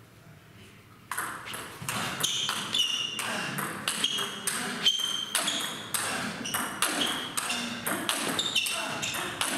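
Table tennis ball knocking off the bats and bouncing on the table in a fast, continuous rally that starts about a second in. It is attack against lobbing defence: one player drives the ball while the other sends back high balls from far behind the table.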